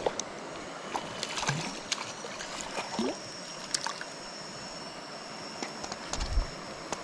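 Shallow river flowing steadily over rocks, with scattered clicks and splashes as a small hooked fish is reeled in and swung out of the water on a baitcasting rod. A dull thump about six seconds in.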